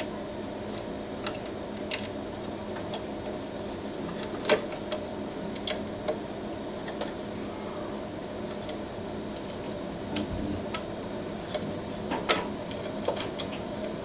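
Irregular small clicks and taps from a hand tool turning the screws of a Prusa i3 MK3 heatbed down onto nylock nuts, a turn at a time on each screw, over a steady low hum.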